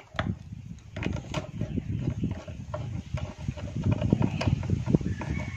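Socket ratchet wrench clicking rapidly as it tightens the front brake caliper's mounting bolt on a motorcycle.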